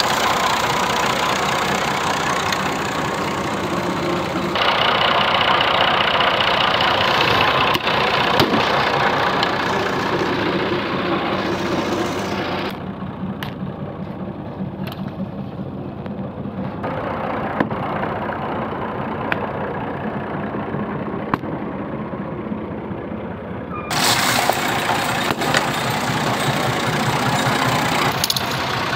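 Tractor engine running steadily at low speed while its rear tyre rolls over and crushes objects, with occasional sharp cracks and pops. The engine's sound changes abruptly several times.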